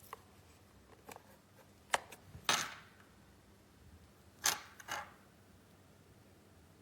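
A few light clicks and knocks, with two short scraping or rustling sounds about two seconds apart.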